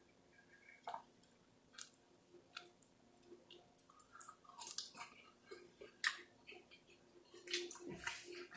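Faint, scattered wet smacks and clicks of a person eating, chewing and handling saucy food, a little louder about halfway through and near the end.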